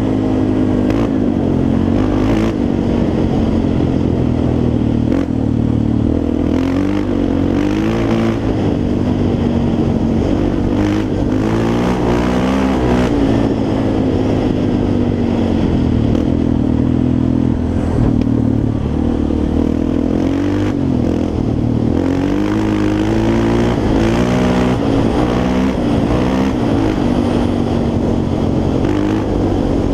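Yamaha Raptor 350 quad's single-cylinder four-stroke engine running under riding load, its pitch rising and falling again and again as the throttle is opened and closed.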